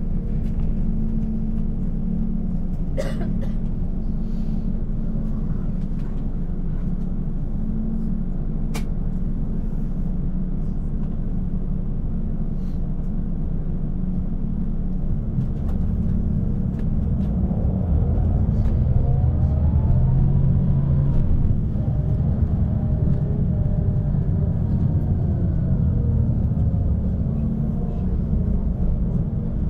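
Bus engine and road noise heard from inside the bus as a steady low rumble. About two-thirds of the way through, the engine note rises and falls a few times as the bus pulls away and shifts gear. There is a sharp click about three seconds in and another near nine seconds.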